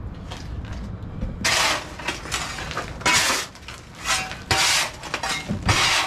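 A square-bladed shovel scraping across a concrete floor and scooping dirt, gravel and broken concrete: several separate scrapes, each under a second long.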